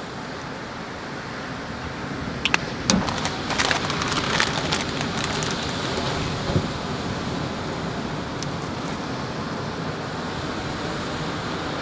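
Plastic bag crinkling and food packaging clicking as hot dogs are put together, bunched between about two and five seconds in, over a steady rushing background.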